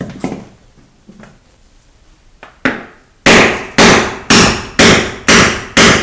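Mini sledgehammer striking a chisel held against a concrete floor, breaking up the concrete. A few light taps come first, then from about three seconds in a steady run of loud blows, about two a second.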